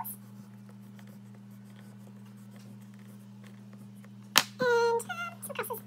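Oil pastel faintly scratching across paper in zigzag strokes over a steady electrical hum. About four seconds in comes a click, then two short wordless vocal sounds.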